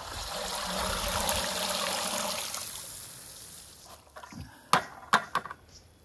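Water draining through the holes of a perforated plastic bucket full of wet washing as it is lifted out of the outer bucket, a steady rush that tapers off after about three seconds. Near the end, three short sharp knocks.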